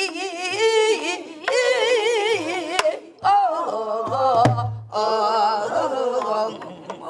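A woman singing a Namdo folk song in traditional Korean style, her voice wavering in wide, heavy vibrato, in phrases broken by short breaths. A couple of strikes on a buk barrel drum fall in the middle.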